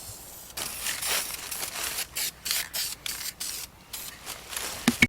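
Clear gloss enamel being applied over painted wood: a run of short, uneven hissing strokes that die away after a few seconds, with a sharp click near the end.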